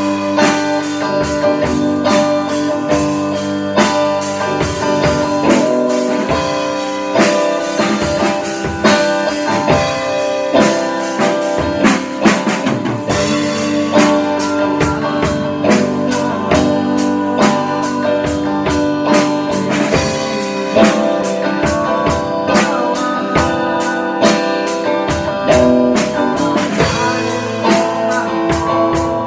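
A live band: an electric guitar and a Pearl drum kit playing together, with drum and cymbal hits on a steady beat under held guitar chords.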